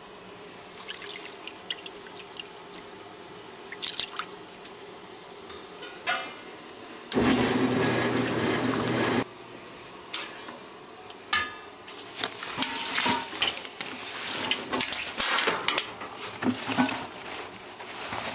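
Washing machine running with water sloshing and splashing in the drum, with scattered knocks. About seven seconds in, a loud rush of water starts suddenly and cuts off two seconds later.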